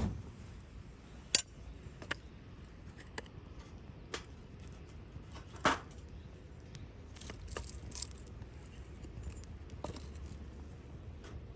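Scattered light clinks and knocks of small hard objects being handled, two of them sharper than the rest, over a faint steady low hum.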